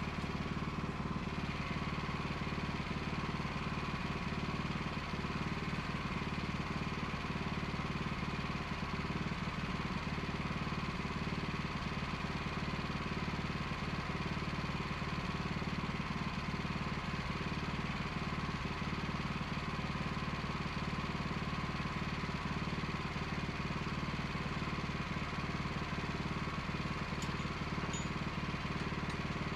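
Engine of a Wood-Mizer LX25 band sawmill running steadily, with no change in pitch or level.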